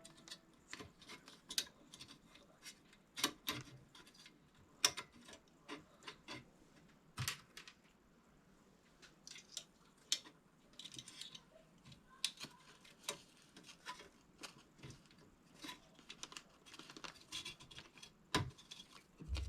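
Computer parts being handled and fitted by hand: irregular light clicks, taps and small rattles of hardware, with a few brief rustles.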